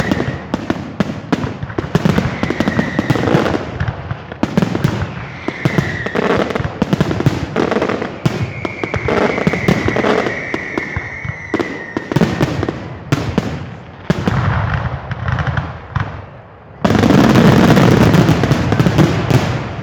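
Fireworks going off: a rapid run of bangs and crackling, with several short whistles and one long, slightly falling whistle about 9 to 12 seconds in. Near the end a sudden dense, loud barrage of crackling bangs begins.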